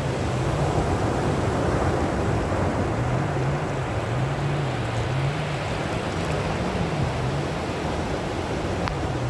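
Sea surf washing steadily, an even rushing noise, with a low hum underneath that slowly wavers up and down in pitch.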